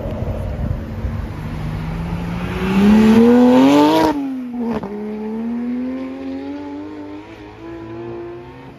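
Sports car engine accelerating hard, its pitch climbing to a loud peak about four seconds in, dropping through a gear change, then climbing again more slowly as it pulls away.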